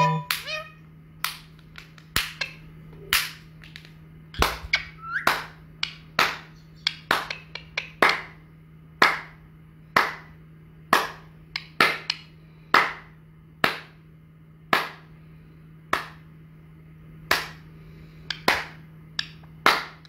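Indian ringneck parakeet making a string of short, sharp clicks at an irregular pace of about one or two a second, over a steady low hum.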